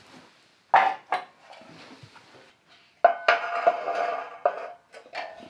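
Steel panels set down and shifted on a concrete floor: an old rusty rain-gutter strip and a flat sheet-steel panel. There are two knocks about a second in, then a loud clank just after three seconds that rings on for over a second, and one more clank near the end.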